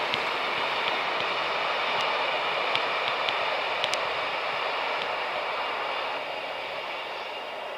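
Train rolling past on the track: a steady rushing rail noise with faint high-pitched wheel squeal and a few sharp clicks from the wheels.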